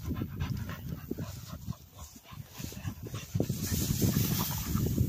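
Cocker spaniel panting in quick, close breaths after a retrieve, with a hissing rustle from about three and a half seconds in.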